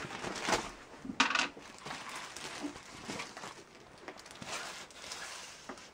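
Plastic packaging crinkling and rustling as it is handled and pulled open, with sharper crackles about half a second in and around a second and a half in.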